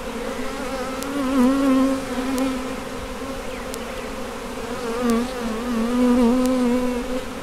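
Italian hybrid honey bees buzzing around an open hive: a steady hum whose pitch wavers, swelling louder about a second in and again for a couple of seconds near the end as bees fly close by.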